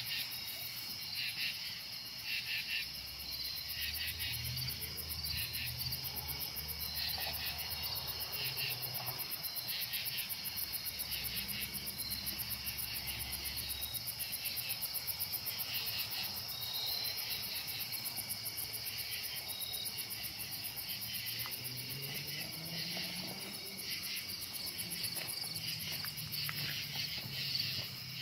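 Night chorus of crickets and other insects: steady, rapid pulsing chirps, with a faint low rumble at times underneath.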